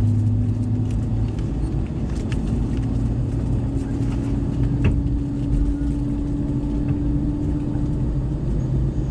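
Airbus A319 cabin noise while taxiing, heard inside the cabin: a steady rumble with a low engine hum, plus one faint click about five seconds in.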